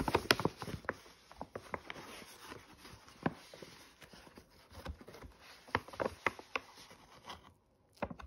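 Crinkling and crackling of a stiff plastic snack pouch being handled, in sharp irregular clicks. The clicks are busiest at the start and again around six seconds in.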